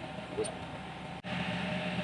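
Steady mechanical hum with a light metallic clink about half a second in. The sound cuts out for an instant just past one second, then returns a little louder.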